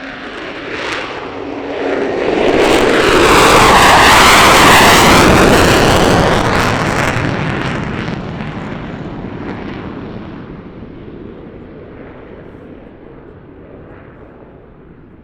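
A military fighter jet taking off and passing by. The jet engine noise swells to a loud peak about four seconds in, with a sweeping shift in tone as it goes by, then slowly fades away.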